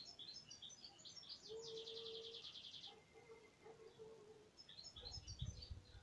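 A small songbird singing two phrases of quick, high, varied notes, the first ending in a fast trill. Faint, with a low steady tone in the middle and a brief low rumble near the end.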